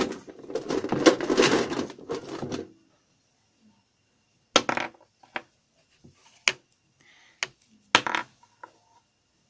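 Rustling and handling noise for the first few seconds, then a handful of sharp clicks as small plastic toy figures are picked up and knocked against a table.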